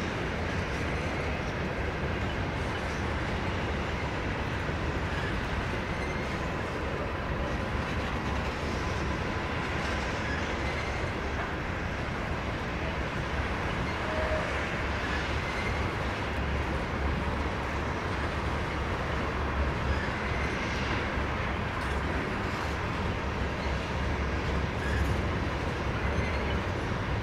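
Norfolk Southern freight train's tank cars and covered hoppers rolling past, a steady rumble of steel wheels on rail.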